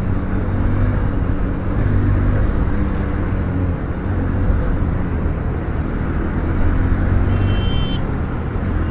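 Motorcycle engine running steadily under way, with road and wind noise. About seven seconds in, a short high-pitched beep sounds, like a vehicle horn.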